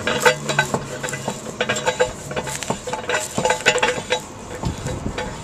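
The gate of a sewer backwater valve being slid open and shut by hand, making a run of sharp clicks, knocks and scrapes with some brief metallic clinks.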